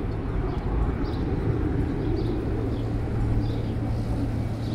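Steady engine rumble with a low hum that sets in about a second in, and a faint high chirp repeating about twice a second.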